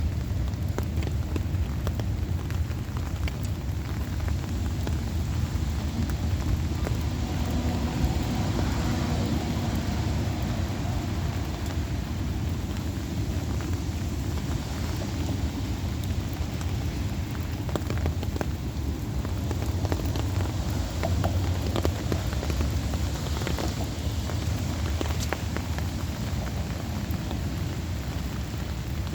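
Heavy rain falling steadily, with many sharp drop impacts and a constant deep rumble underneath.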